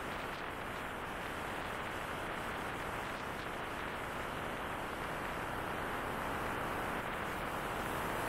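Wind and road noise on a moving motorcycle: a steady rushing hiss that grows slightly louder towards the end.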